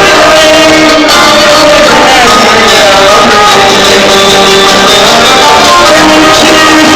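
Live music with singing and instruments, recorded very loud with the level pinned near full scale throughout.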